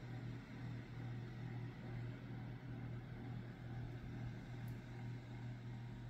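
A steady low mechanical hum, like a fan or motor running, with soft rubbing of a rag wiping boiled linseed oil along a wooden axe handle.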